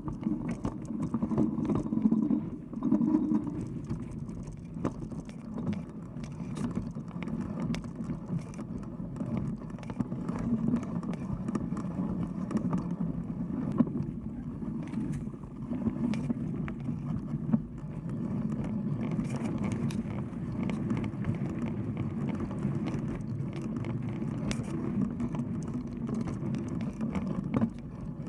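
Mountain bike with wide knobby tyres rolling along a dirt trail, heard from a camera mounted on the bike: a steady low rumble of tyres on the ground, with frequent clicks and rattles over bumps.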